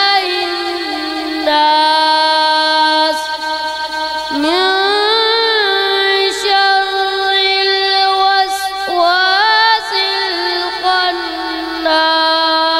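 A boy's voice reciting the Quran in melodic tajweed style through a microphone. He draws each phrase out into long, held notes, sliding up in pitch at the start of each new phrase, several times.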